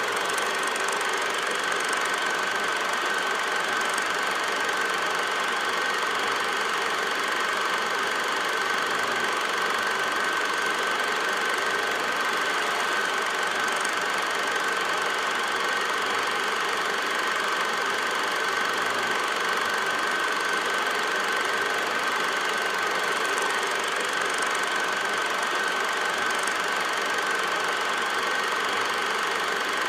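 8mm film projector running: a steady mechanical clatter from the film transport, with a constant high whine running through it.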